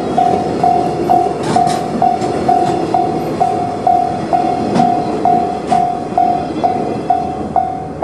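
Japanese level-crossing warning bell ringing a single tone about twice a second, over the rumble of container freight wagons rolling past with a few sharp clicks of wheels over rail joints as the end of the train goes by.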